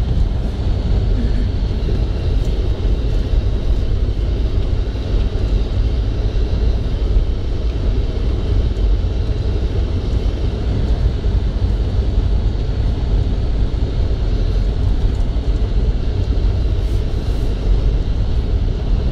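Car driving on a road covered in deep snow, heard from inside the cabin: a steady low rumble of engine and tyres.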